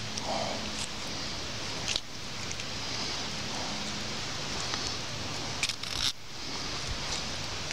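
A knife cutting the head off a brown trout, its blade giving a few small sharp clicks and cracks as it works through the neck and backbone, the loudest cluster near the end. A steady hiss runs underneath.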